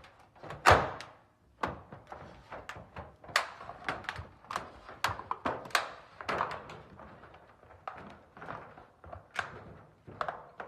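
Hand seam crimper being clamped and worked along a steel standing-seam roof panel: a string of irregular metallic clunks, taps and knocks, the loudest a sharp thunk just under a second in.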